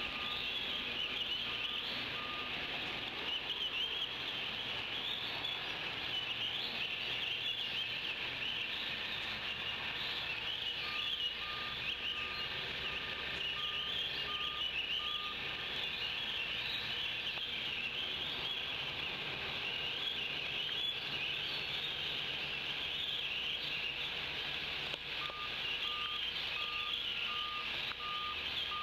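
Birds chirping steadily in a dense, high chorus, while a distant vehicle's reversing alarm beeps a little under twice a second in three stretches: at the start, from about eleven seconds to fifteen, and again near the end.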